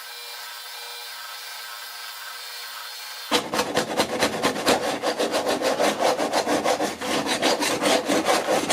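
A piece of wood being worked back and forth by hand, with rapid rasping strokes about five a second, beginning about three seconds in. Before the strokes there is a steady hum with several held tones.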